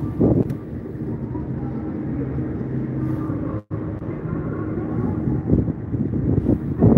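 Outdoor ambience with a steady low engine hum from vehicles, and wind rumbling on the microphone. The sound cuts out for an instant about halfway through.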